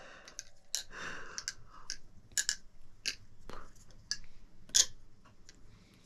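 Chanwich balisong being flipped: irregular light clicks and clacks of the handles and pivots, with one louder clack near the five-second mark.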